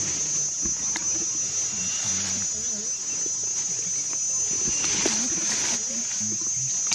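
Steady high-pitched drone of forest insects, one unbroken tone throughout.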